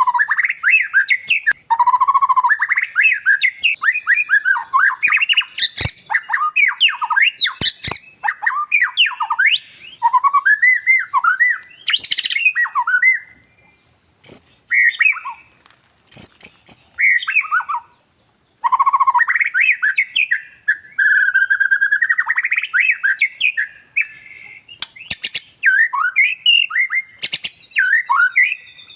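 Oriental magpie-robin (kacer) singing a fast, varied song of whistles, trills and chattering notes, with brief pauses near the middle. A few sharp clicks sound in the first third.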